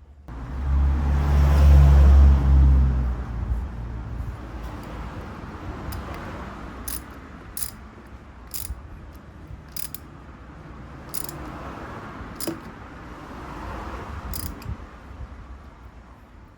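Small metal carburettor parts and tools clicking and clinking as they are handled and fitted, about seven sharp clicks. A loud low rumble fills the first three seconds or so.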